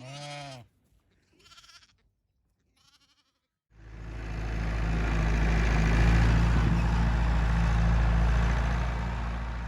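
A sheep bleats once, with fainter bleats after it. Then the steady sound of a vehicle engine swells up, runs loud for about six seconds and begins to fade near the end.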